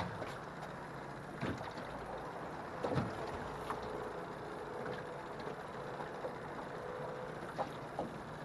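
Choppy water slapping and lapping against an aluminium jon boat's hull as it rocks in the waves, with several sharp knocks. A faint steady hum runs through the middle.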